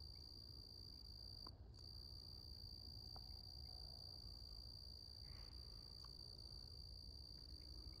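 Faint, steady high-pitched trilling of crickets at night, continuous apart from a short drop-out about one and a half seconds in.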